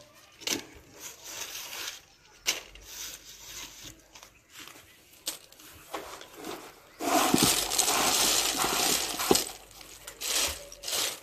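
Dry in-shell peanuts dropped into the metal mesh hopper of a hand-operated groundnut shelling machine: a scatter of light clicks and rattles. About seven seconds in, a bowlful is poured in, a dense rattling rush of pods lasting about three seconds.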